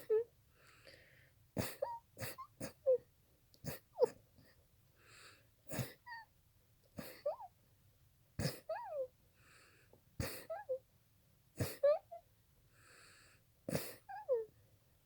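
A run of short, sharp sneezes, about a dozen, one every second or two, each followed by a brief squeaky high note.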